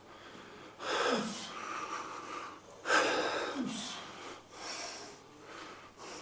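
A weightlifter's forceful breathing under strain: three heavy, breathy exhales about two seconds apart, each ending in a short falling grunt, one per rep of a cable chest fly.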